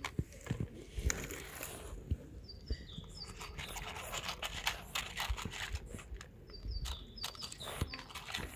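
Cats eating dry kibble from a plastic plate: irregular sharp crunches and clicks of the pellets being bitten and chewed. Short, high bird chirps come twice, about three seconds in and again near the end.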